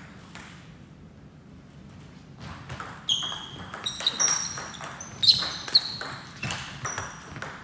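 Table tennis rally: a ping-pong ball clicking sharply off the bats and the table, a quick run of hits starting about three seconds in.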